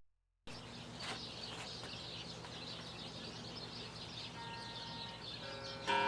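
Quiet steady hum with faint birds chirping in the background, a few soft guitar notes ringing, then a guitar chord struck loudly near the end.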